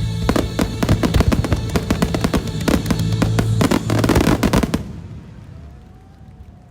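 Fireworks firing in a dense, rapid barrage of bangs and crackles over loud show music. Both cut off abruptly about five seconds in, leaving a much quieter background.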